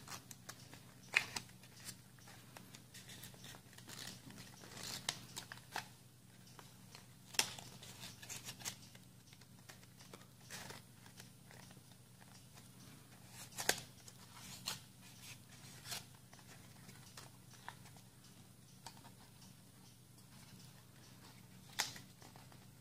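Sheets of folded origami paper rustling and crinkling as they are handled, pressed and twisted, with sharp paper crackles every second or two, over a faint steady low hum.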